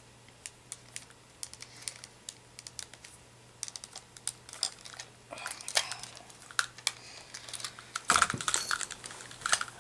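Small hard plastic toy parts (Beyblade launcher and grip pieces) being handled and fitted together: irregular light clicks and rattles, sparse at first and busier from about halfway through.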